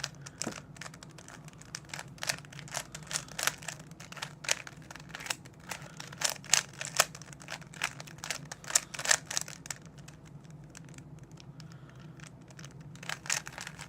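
Plastic 3x3 speed cube being turned by hand: quick, irregular runs of clicks and clacks as the layers snap round, thinning out about ten seconds in and picking up again near the end.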